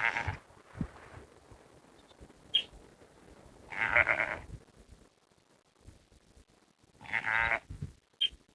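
Bighorn sheep bleating: three separate calls, a few seconds apart.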